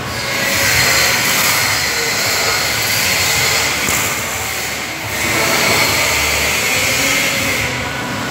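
Electric arc welding: a steady crackling hiss from the arc, in two long runs with a short break about five seconds in.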